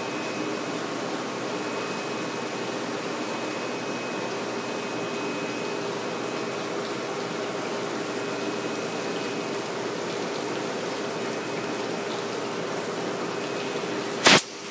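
Steady rush of running water with a low pump hum from a recirculating fish-tank system. A single sharp knock near the end.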